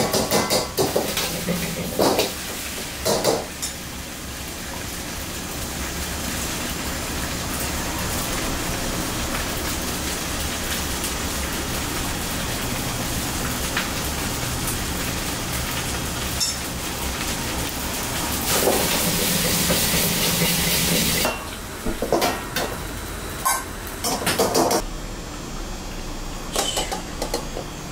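Fried rice being stir-fried in a wok: a steel ladle clanks and scrapes against the wok over the steady rush of the gas burner and sizzling rice. A louder hiss sets in late and cuts off suddenly, followed by a few more metal clanks near the end.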